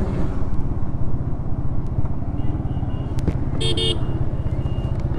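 TVS Apache 160's single-cylinder engine running steadily under way, with a short horn toot about three and a half seconds in.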